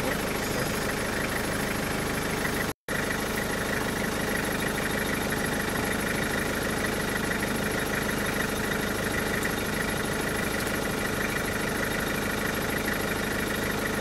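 A vehicle engine idling steadily, with the sound cutting out completely for a split second about three seconds in.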